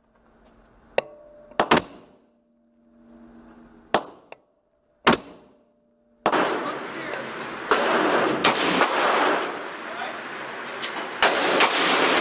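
Rifle shots from a 7.62x39 AR-15 at an indoor range, fired singly at irregular intervals. Each shot is a sharp crack with a short echo, with a faint steady hum between them. About six seconds in, the sound switches abruptly to a loud, continuous rushing noise broken by more sharp cracks.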